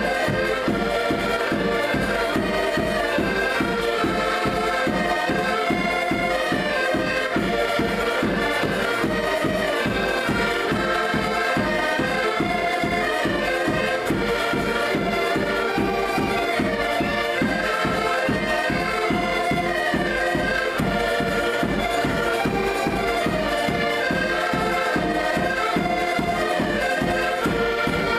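Several accordions playing a traditional Portuguese folk tune together, with a bass drum beating a steady rhythm underneath.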